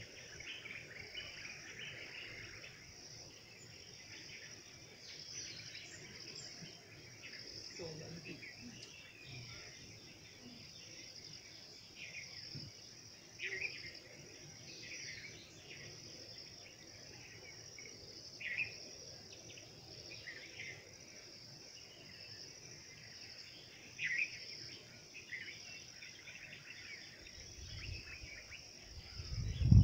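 Steady high-pitched chorus of insects, with occasional short bird chirps over it. A low rumble builds in the last two seconds.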